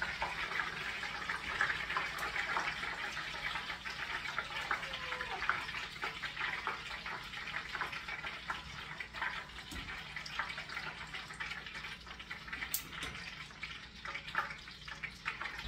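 Hot oil sizzling steadily in a pot on the stove as broccoli deep-fries, with scattered small pops and crackles.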